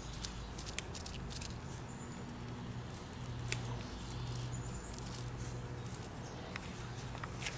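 Puppies moving about, with scattered light clicks and patter. A steady low hum runs underneath, and a couple of faint high chirps sound briefly.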